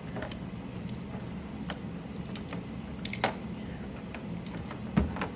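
Scattered sharp plastic clicks and taps from a mechanical keyboard being worked on, with a quick cluster of clicks about three seconds in and a dull knock near the end, over a steady low hum.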